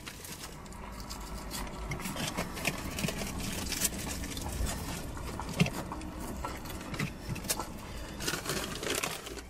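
Irregular rustling, scraping and small clicks of a takeaway fish-and-chips box being handled as the fish is picked apart and eaten.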